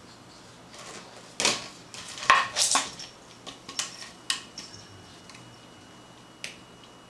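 Empty plastic Coke bottle knocking and clattering on the floor as a cat bats and pushes it: a run of hollow knocks and rattles from about a second and a half in, loudest around the third second, then a few scattered taps and one last knock near the end.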